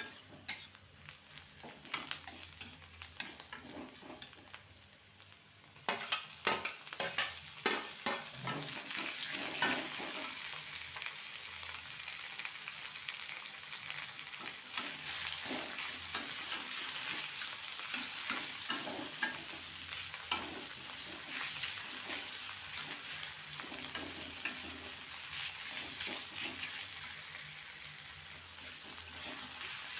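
Food frying in a hot pan with a spatula stirring and scraping, tapping against the pan. The sizzle jumps up sharply about six seconds in and then holds steady, with frequent clicks from the stirring.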